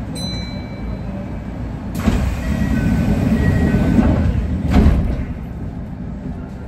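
Kintetsu 1620 series electric train standing at the platform as its sliding doors close: a rush of noise for about three seconds that ends in a sharp thump, over the train's steady low hum.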